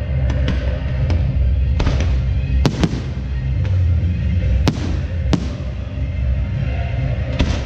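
Fireworks going off over loud, bass-heavy music, with several sharp bangs from bursting shells, two close together about three seconds in.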